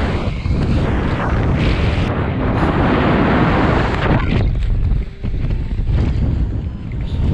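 Loud, gusty wind rushing over the microphone of a paraglider in flight, the rush of the airflow at flying speed. It eases for a moment just after five seconds in.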